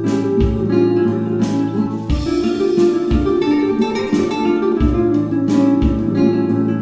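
Instrumental background music: plucked guitar notes over sustained lower notes, with no voice.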